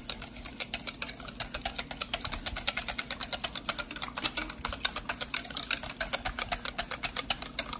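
A utensil clicking rapidly against a mixing bowl while stirring condensed and evaporated milk together: an even run of sharp clicks, several a second.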